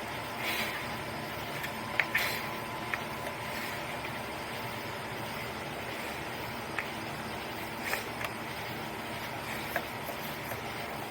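Scattered light clicks and taps of a tool working on a car battery terminal connector, cleaning off white corrosion, over a steady background hum.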